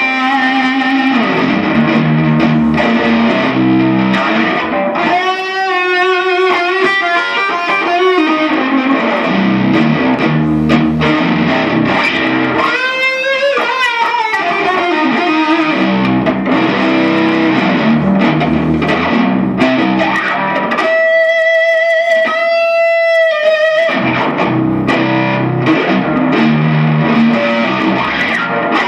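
Electric guitar music, with notes that bend in pitch and one long held note a little over two thirds of the way through.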